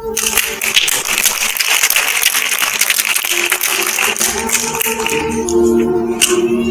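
Audience clapping that starts suddenly as a testimony ends and dies away about five and a half seconds in, over steady background music that carries on and grows louder near the end.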